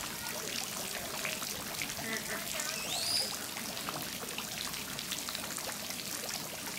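Water trickling and pouring steadily into a penguin pool, with a short rising whistle about three seconds in.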